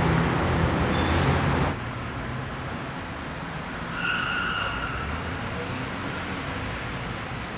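City road traffic noise: a steady rumble of passing cars, louder at first and dropping suddenly to a softer background less than two seconds in. About four seconds in, a brief high squeal sounds over it.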